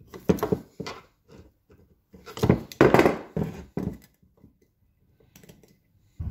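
Pliers clicking and scraping against the metal governor spring and lever of a Ford 8N tractor while the spring's ears are bent to make the floppy spring snug. The clicks and knocks come in two flurries, a short one near the start and a longer one about two seconds later.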